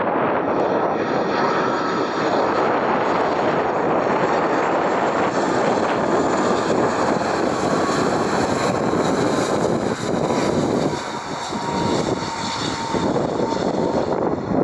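Airbus A330 twin-jet airliner on final approach and passing to land, its engines a steady loud roar with a faint whine that slowly falls in pitch as it goes by. The roar eases slightly about ten seconds in.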